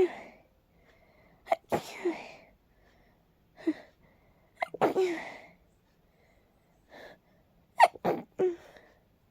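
A person sneezing in a rapid fit brought on by allergies: repeated sharp sneezes, several coming two or three close together, with short pauses between them.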